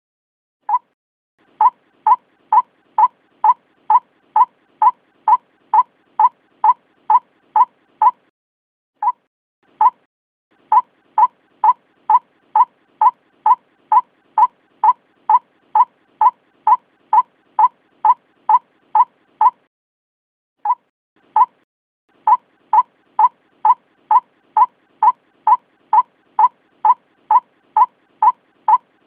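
White-breasted waterhen calling: a single mid-pitched 'kwak' note repeated about three times a second in long runs, broken by pauses of one to two seconds. This is a recorded call used as a bird lure.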